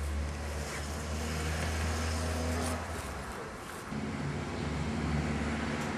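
A fire engine's engine running steadily with a low, even hum. It dips briefly about three seconds in, then picks up again.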